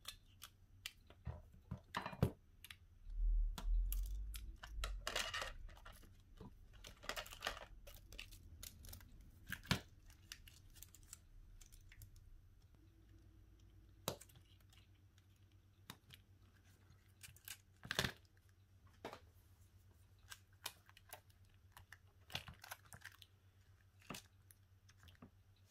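Small tools and parts being handled in work on a Xiaomi Redmi 8A smartphone: scattered clicks, taps and short scrapes, with a few louder knocks a few seconds in.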